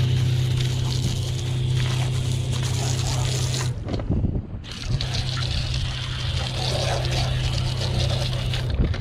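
Deck wash pump running while its hose sprays water, a steady hum under the hiss of the spray. Both cut out together for about a second near the middle, then start again and stop near the end.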